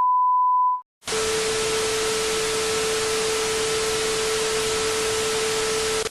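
Synthesized mock emergency-alert audio: a short steady electronic beep, a brief gap, then about five seconds of static hiss with a steady low hum-like tone running through it, cut off abruptly.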